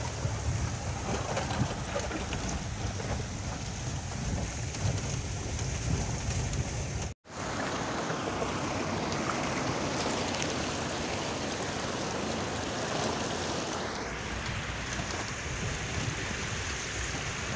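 Jeep driving over a rough rocky off-road track, heard from inside the cab: a steady rumble and rushing noise of engine, tyres and rattling body. The sound cuts out for an instant about seven seconds in, and then the wheels are splashing through a shallow stream, a brighter rushing noise.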